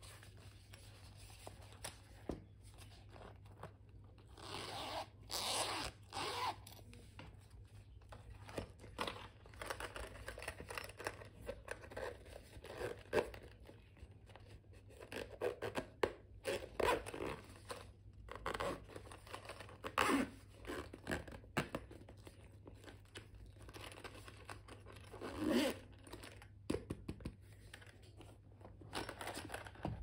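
Hardshell pencil cases being handled: a zipper being drawn and the cases scraping, rasping and clicking in irregular bursts.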